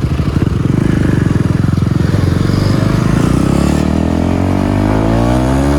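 KTM Duke 250 single-cylinder engine running loud with its exhaust removed, firing in rapid uneven pulses, then rising in pitch as it is revved up in the last few seconds.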